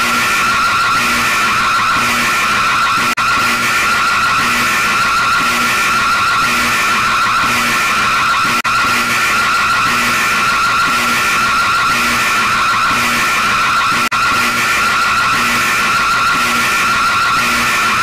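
Loud, harsh, distorted emergency alert alarm tone with a fast warble, screeching on without a break apart from three momentary dropouts.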